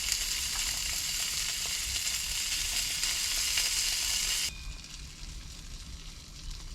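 Food sizzling and crackling as it fries, stopping abruptly about four and a half seconds in and leaving only a faint low hiss.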